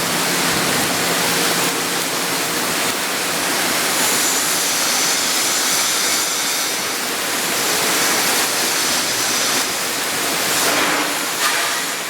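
Electric arc welding on carbon steel pipe: a steady, loud hissing crackle of the arc with no pauses.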